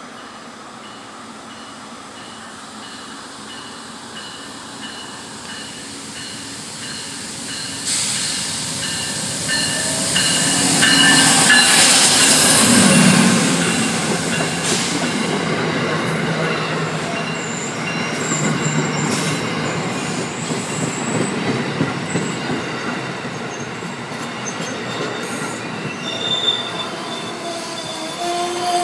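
Amtrak passenger train approaching and passing close by. The sound builds from about eight seconds in and is loudest around twelve seconds as the locomotive goes by. The stainless-steel coaches then roll past with steady wheel squeal and rumble.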